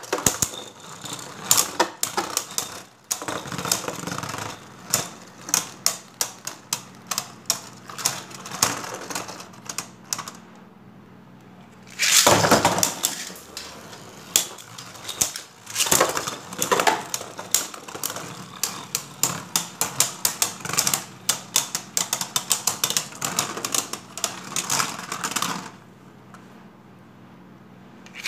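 Beyblade Burst spinning tops clashing in a plastic stadium, a fast run of sharp clacks as the tops strike each other and the stadium walls. The clacking drops away twice into quieter stretches. A louder burst of clatter comes about twelve seconds in.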